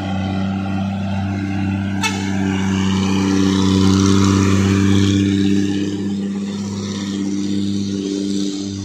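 An old, fully loaded diesel truck's engine labouring uphill at steady revs, getting louder as it passes close about four seconds in and then easing as it pulls away.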